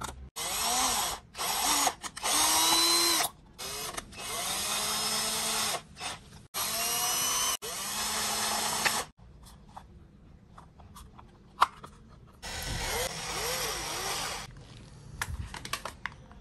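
Handheld electric drill-driver running in a string of short bursts, its motor whine rising as each burst starts, driving screws through a plastic cap. After a few seconds of light clicks and handling, it runs once more.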